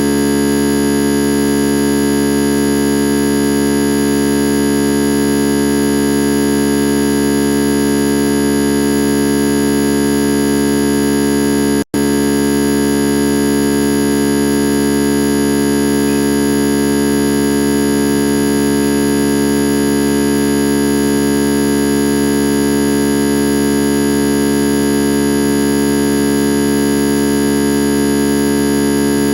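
A loud, unchanging electronic buzzing drone of many held tones, cutting out for an instant about twelve seconds in.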